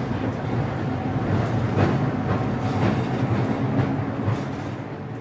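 Train wheels rolling along the track with a steady rumble and irregular clacks over the rail joints, fading down near the end.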